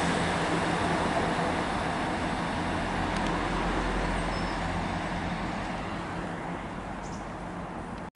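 A passing train receding, its steady rumble fading away.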